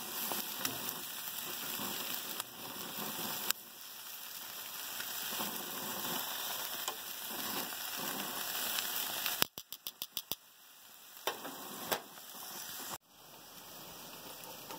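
Steak tips sizzling on a gas grill: a steady frying hiss. About two-thirds of the way through there is a quick run of about seven sharp clicks, and near the end the hiss drops to a quieter background.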